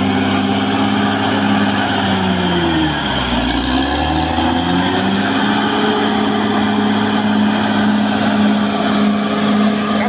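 Caterpillar D6R XL bulldozer's diesel engine running hard as the blade pushes earth. About two to three seconds in, the engine note and a high whine above it sag in pitch, then climb back to a steady pitch a couple of seconds later.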